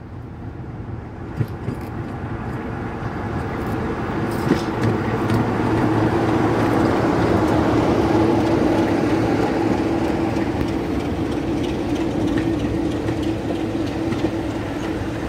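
Class 45 'Peak' diesel locomotive, its Sulzer twin-bank engine running, growing louder as it approaches and is loudest as it passes about halfway through. The engine rumble then fades a little as the coaches roll past on the rails.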